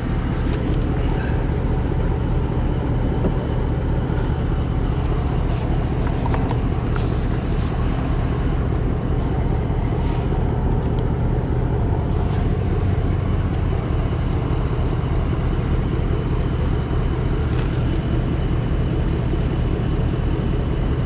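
A motor vehicle engine idling steadily, with a low hum and no change in speed.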